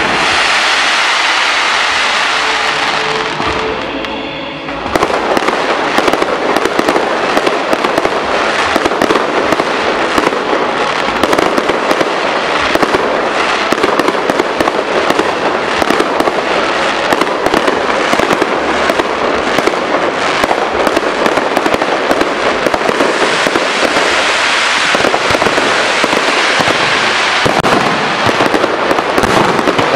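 Fireworks display: a dense rushing hiss for the first few seconds, then from about five seconds in a continuous rapid crackle of many small pops and bangs that keeps up to the end.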